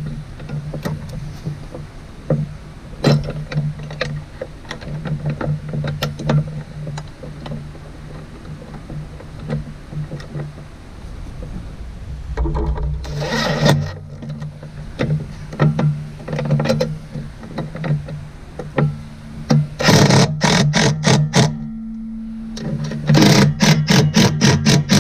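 Cordless impact driver with a 10 mm socket hammering bolts tight in three short bursts: one about halfway through, then two close together near the end. A steady low hum runs underneath.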